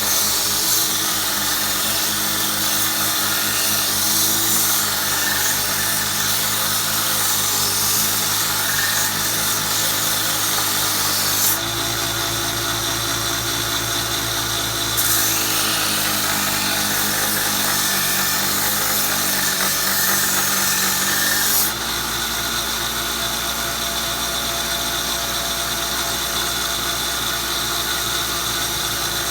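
Belt sander running with a 120-grit belt, grinding the steel of a draw knife blade: a steady motor hum under a sanding hiss. The sound shifts abruptly twice, about 12 and 22 seconds in.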